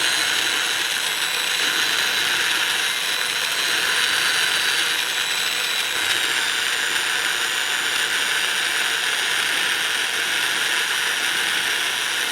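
Electric drill with a sanding pad running steadily with a high whine, sanding the end grain of a cherry wood muddler with a light touch.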